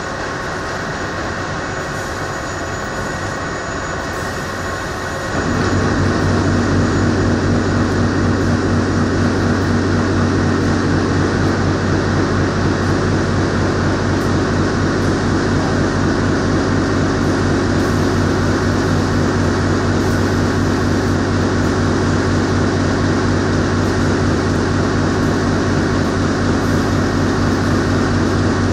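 Steady running noise of a corrugated-box flexo folder gluer line and its palletizer and roller conveyors. About five seconds in, a louder low hum joins and the level steps up, then holds steady.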